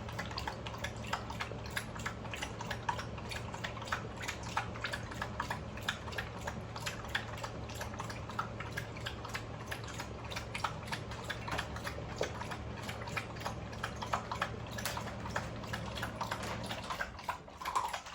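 American bully puppies eating from their food bowls: a dense, steady run of small chewing and licking clicks. Under it a steady low hum stops about a second before the end.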